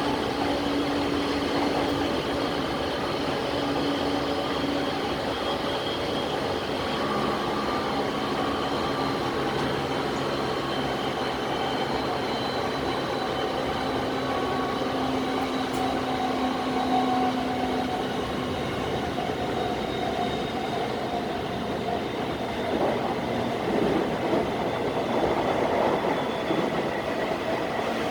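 JR East E217 series electric train running along the line: a steady rumble of wheels on rail, with motor tones that hold, shift and fade. The rail noise turns rougher and more uneven near the end.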